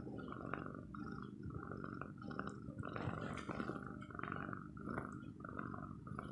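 Close-up purring of a calico cat, a low rumble that pulses about twice a second.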